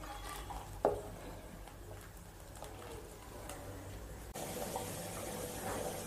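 Wooden spoon stirring a thick prawn curry in a pot, with one light knock about a second in. About four seconds in, the sound changes to the curry bubbling at the boil.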